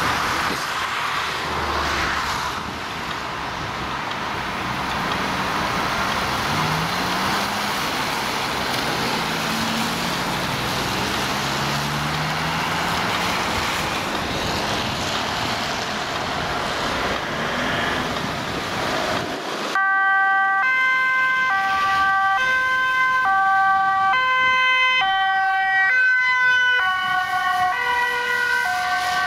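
Road traffic noise with a vehicle engine passing. About two-thirds of the way in, a Dutch ambulance's two-tone siren cuts in, alternating between a high and a low note about once a second.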